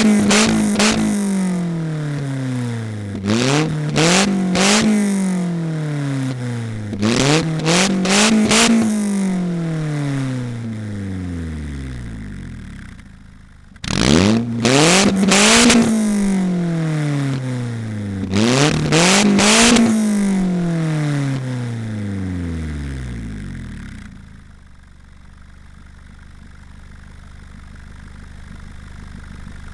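Polaris Slingshot engine breathing through a DNT Racing aftermarket exhaust, revved in quick blips about five times. Each time the revs rise sharply and then fall back slowly. In the last several seconds it settles to a low idle.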